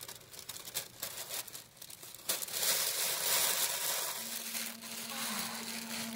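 Paper crinkling and rustling up close. About four seconds in, a steady, low, horn-like tone starts and holds: a signal that the listeners take to mean water is about to be let out.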